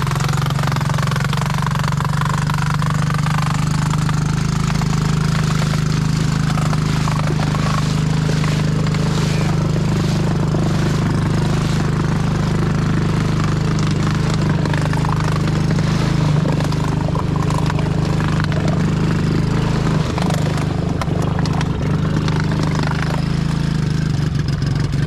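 Small kids' ATV engine running at a steady low speed as the quad is driven through deep pond water.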